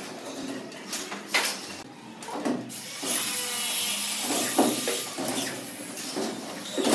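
Cordless drill/screwdriver whirring as it drives screws into gypsum board on a metal ceiling frame, with several sharp knocks from the boards being handled and pressed into place.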